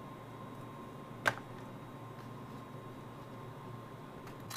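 One sharp click about a second in and a few faint clicks near the end, over a faint steady hum: a small hand tool tapping against the metal and parts of an opened MacBook Pro as it is being taken apart.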